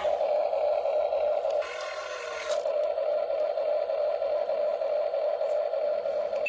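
Steady mechanical whirring of a small motor, with a brief change in sound about two seconds in, cutting off abruptly at the end.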